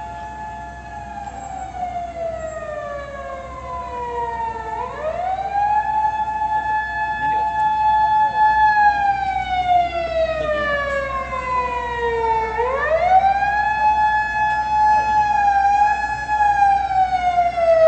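Fire engine's motor siren winding up quickly, holding its wail for a few seconds, then slowly winding down, twice over, growing louder as it comes closer; it cuts off near the end.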